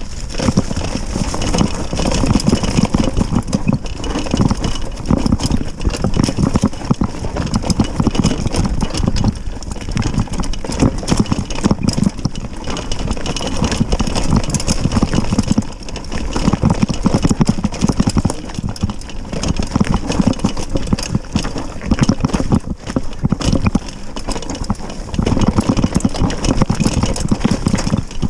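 Mountain bike clattering and rattling as it descends a rough downhill trail at speed. A dense, irregular run of knocks from the bike hitting the ground sits over a constant low rumble.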